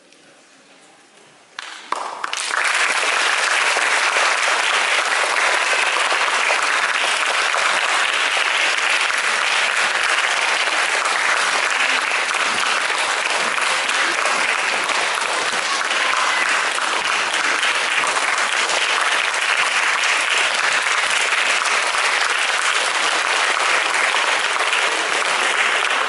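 Audience applauding. The clapping starts suddenly about two seconds in and carries on at an even level.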